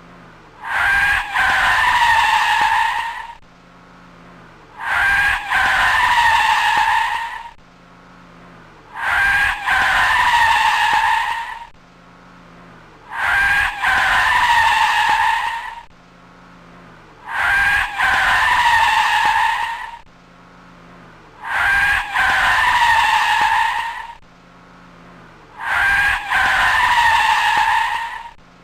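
A car exhaust fitted with an eBay four-tip N1-style stainless muffler, revved seven times at a steady pace. Each rev is a loud, raspy, high-pitched blare of about two and a half seconds, and between revs the engine idles with a low hum.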